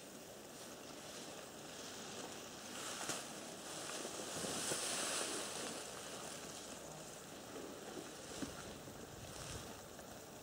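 Soft wind noise, swelling for a couple of seconds about halfway through, with a couple of faint clicks.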